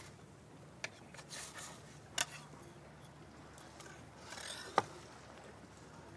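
Metal knife and spatula scraping and clicking against a wooden cutting board and ceramic plates as cooked fish fillets are lifted and plated: three sharp clicks, about a second in, at two seconds and near five seconds, the last the loudest, with soft scrapes between.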